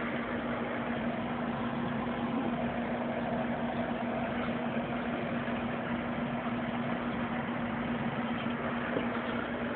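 Aquarium pump running: a steady hum over an even hiss.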